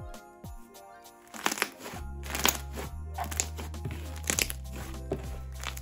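Background music, with a low steady bass coming in about two seconds in, over the sound of a fluffy cloud bread slime being squeezed and stretched by hand, giving irregular crackling bubble pops.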